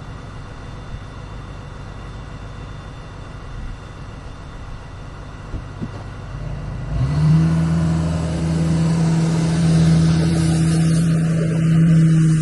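An engine running with a steady low rumble, then about seven seconds in it picks up to a louder, steady, higher-pitched drone under load, which cuts off suddenly at the end.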